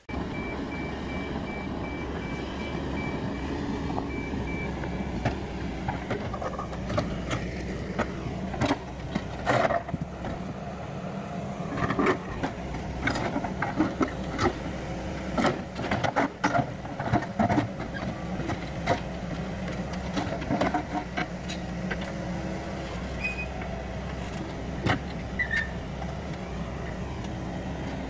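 Yanmar SV100 excavator's diesel engine running steadily under hydraulic load while its grapple grabs large field stones. Many sharp clunks and knocks of rock on rock and steel come in the middle, then fewer as a stone is lifted clear.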